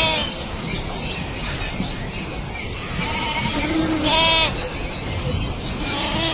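An animal giving short, quavering, bleat-like cries, three times, the loudest about four seconds in, over a steady background hiss.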